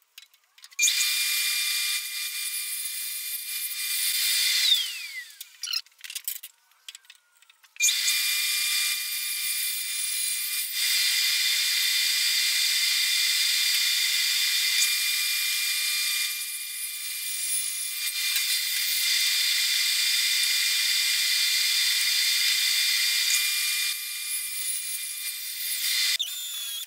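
Jobsite table saw's motor running with a steady high whine. It is switched off about five seconds in and winds down in falling pitch, then starts again about three seconds later and runs on until near the end.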